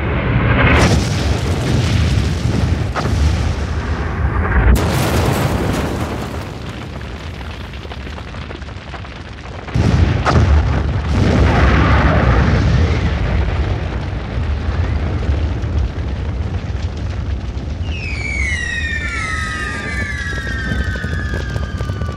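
Firework battery of aerial shots going off: continuous dense crackling and booming, with sharp bangs about a second in, near five seconds and near ten seconds. Over the last few seconds, several whistles fall in pitch together.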